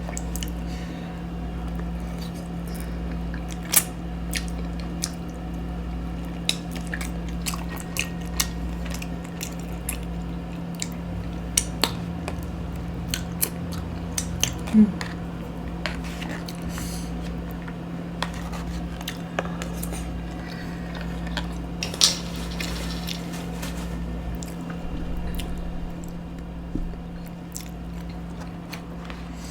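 A person eating up close: chewing, with scattered sharp clicks of cutlery against a dish, over a steady low hum.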